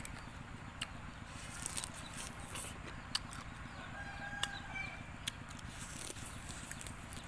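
A rooster crowing faintly about four seconds in, one drawn-out call, over a low steady background with scattered sharp clicks.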